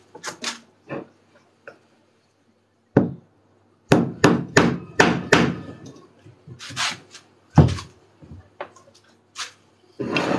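Hammer blows on a thick round wooden board: one sharp strike, then a quick run of five or six, then a few more spaced out.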